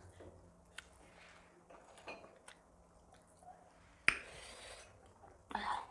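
Faint eating sounds while sharing a meal of dhido and curry: scattered soft mouth clicks and lip smacks, with a sharper click about four seconds in followed by a short hiss.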